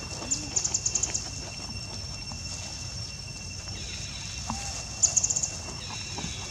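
Outdoor ambience with a steady, high insect drone. Over it come two quick bursts of rapid, high-pitched chirping, one near the start and one about five seconds in, and a few faint short calls.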